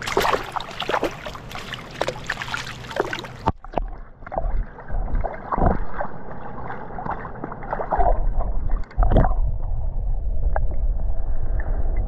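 Water splashing and dripping as a landing net is dipped into a calm river. About three and a half seconds in, the sound turns suddenly muffled as the camera goes under the surface, leaving a gurgling underwater sound, with a low rumble joining it near the end.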